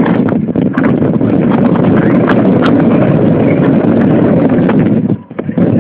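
RC car driving, heard from a cellphone mounted on the car itself: a loud, steady rumble and rattle full of small clicks from the wheels, drivetrain and the taped-on mount, with wind on the microphone. The noise dips sharply for a moment about five seconds in.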